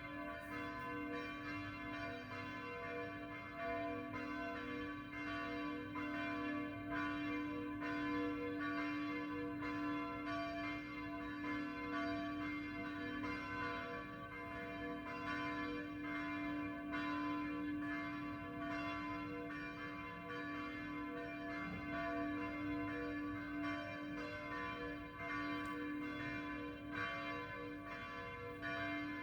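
Hand-rung church bells pealing for dawn prayer, struck again and again so their tones ring on and overlap, with one low tone the loudest.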